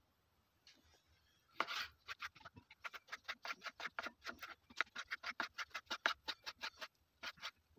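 Kitchen knife chopping raw chicken fillet into small pieces on a wooden cutting board: a run of quick knocks of the blade on the board, about five a second, starting about a second and a half in and stopping just before the end.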